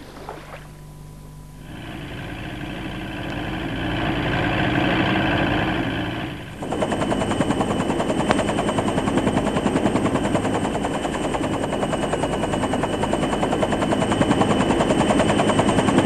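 Helicopter rotor chopping rapidly and evenly with a steady high turbine whine, cutting in abruptly about six and a half seconds in. Before that, a motor sound swells up gradually.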